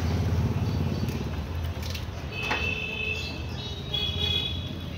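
Steady low rumble of street background noise, with a few light clicks of metal tongs on a charcoal grill's wire grate as chicken pieces are turned. A high steady tone sounds twice in the second half.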